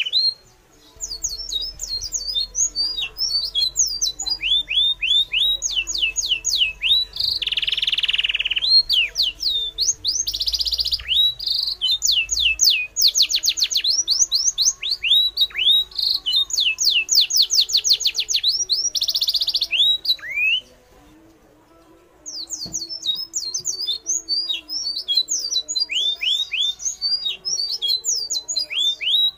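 Birds chirping in quick, dense runs of short, sharply falling notes, with brief bursts of hiss about 7, 10 and 19 seconds in. The sound drops out for a second or two about twenty seconds in.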